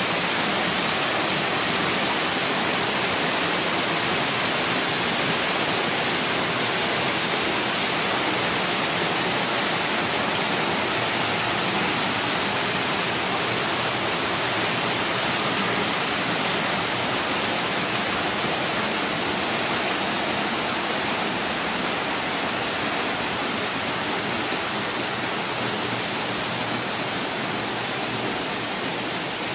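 Heavy rain pouring into a kitchen: rainwater falling in a sheet onto a concrete floor and splashing across the flooded floor, a steady rushing hiss that eases slightly near the end.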